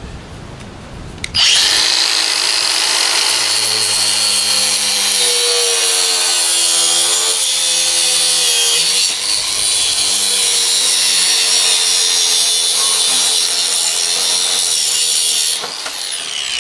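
Cordless angle grinder with a cutting disc starting up about a second in and cutting through a steel-reinforced rubber hydraulic hose: a loud, steady, high-pitched whine with shifting lower tones as the disc bites. Near the end it is switched off and its pitch falls as the disc spins down.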